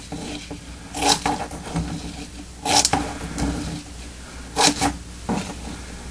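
Scissors snipping short cuts into a plastic tarp: three loud snips roughly two seconds apart, with a few fainter ones between.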